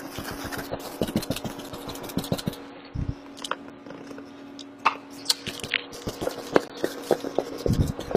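Paint brush stippling and dabbing on a leather recliner: quick, irregular taps and scrapes, with a soft thump about three seconds in and another near the end. A steady low hum runs underneath.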